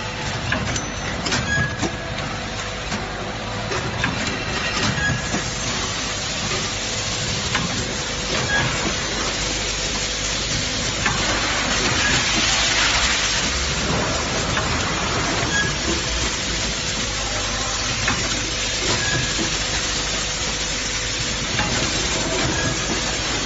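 Tablet blister packing machine running: a steady mechanical hum and hiss with scattered clicks and clatter, and a louder burst of hiss about halfway through.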